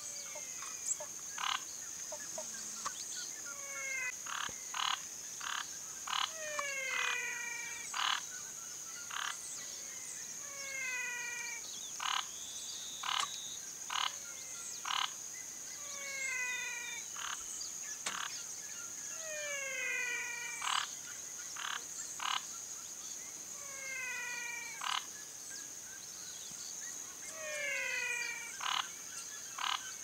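Night frog chorus: short, sharp calls and falling, stepped multi-note calls repeating every second or two, over a steady high-pitched drone.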